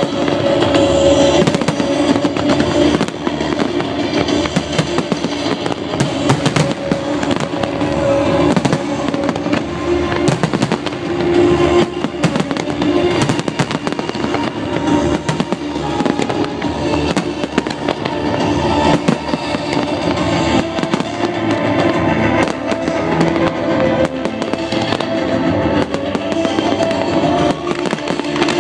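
A fireworks barrage: aerial shells bursting in rapid, overlapping bangs and crackles, densely packed throughout, with music playing underneath at the same time.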